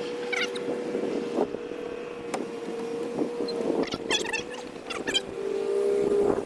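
A small motor humming steadily at one pitch, dipping a little near the end, with scattered clicks and knocks over it.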